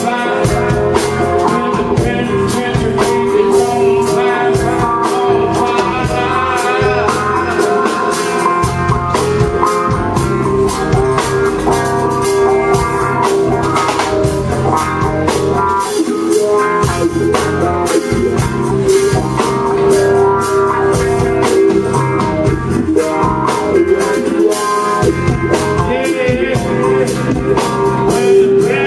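Live rock band playing: a man singing over electric guitar and a drum kit, with the band's steady beat throughout.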